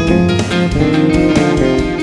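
Instrumental jam-band backing track in F minor: electric guitars and bass guitar playing over a steady drum beat.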